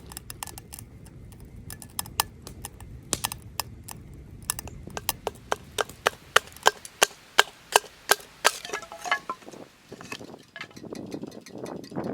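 A series of sharp knocks, scattered at first, then about halfway through a quicker steady run of louder strikes, about three a second, which thin out near the end.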